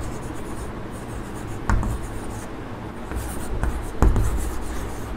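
Chalk writing on a blackboard: scratchy strokes of the chalk, with two sharp taps of the chalk against the board about 1.7 s and 4 s in.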